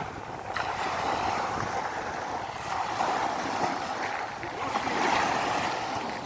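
Small sea waves washing onto a sandy beach, swelling and easing every couple of seconds, with wind rumbling on the microphone.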